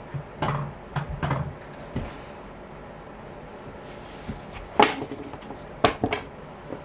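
Tarot cards handled on a surface: a few soft knocks and rustles in the first second or so, then several sharp taps of cards near the end.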